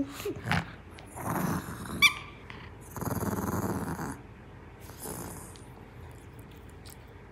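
Maltese puppy growling in play while tugging a plush toy, in three growls, the longest about three seconds in. A brief high squeak sounds about two seconds in.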